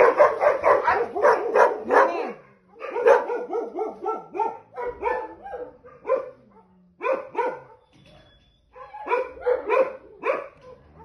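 Dogs barking in runs of quick, repeated barks, about four a second, broken by short pauses.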